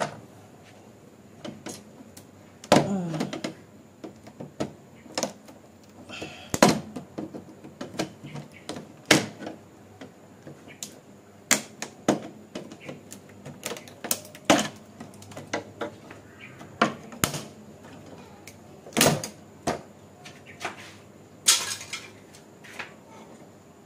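Screwdriver prying a BMW E46 kidney grille's plastic clips loose from the bonnet, the clips stuck with old glue. It makes sharp plastic clicks and knocks at irregular intervals, about fifteen in all.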